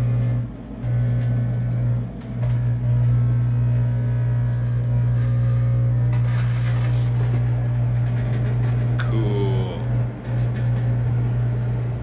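Microwave oven running with a loud steady low hum that drops out briefly a few times, while metal junk-drawer items inside arc and crackle with light snapping clicks. About nine seconds in there is a short burst of falling, sputtering higher sounds.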